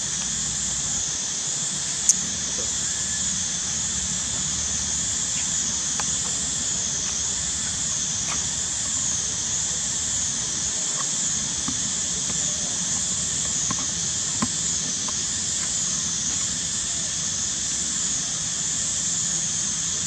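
Steady high-pitched insect drone, rising and falling about once a second. A single sharp click about two seconds in.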